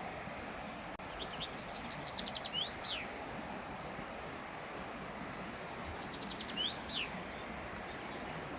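Steady rush of a mountain river, with a songbird singing twice over it: each time a quick run of high notes ending in a slurred flourish.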